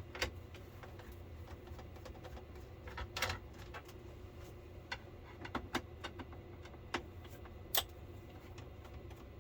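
Scattered light clicks and taps of a screwdriver and hands working screws out of the plastic back cover of a flat-screen TV, a few at a time with short gaps, over a faint low hum.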